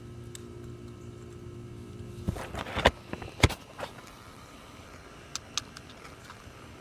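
Handling knocks and clicks as the camera is moved and a small magnet is pressed in among gravel: a cluster of sharp knocks, the two loudest about half a second apart, then a few light clicks. A steady low hum underneath stops a little over two seconds in.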